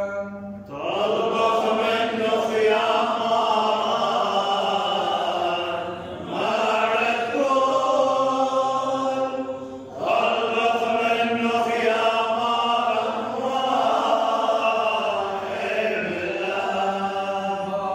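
A priest chanting a Chaldean madrasha hymn in long melodic phrases, with short breaks for breath about 6, 10 and 16 seconds in.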